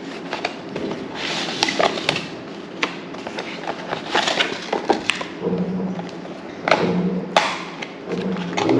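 Rustling, scraping and light clicks of a box and its contents, the cables and accessories of a wireless microphone kit, being handled and unpacked.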